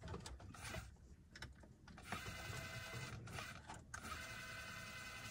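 A few light clicks, then from about two seconds in the small geared motor of a Belimo LMB24 damper actuator whirs steadily as it drives the zone damper from closed to open.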